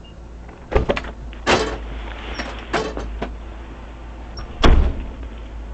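Patrol car door being handled: several clunks and short knocks, then a heavy thump near the end as the door shuts, over the low rumble of the vehicle.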